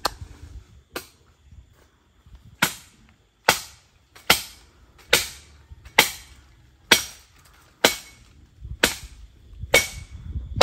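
Steady chopping with a blade into wood, cutting saplings for fence stakes: about a dozen sharp chops, roughly one a second, some with a brief metallic ring.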